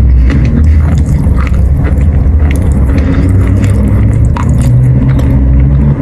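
Chalk being bitten and chewed close to the microphone: a run of short, sharp crunches over a steady low rumble.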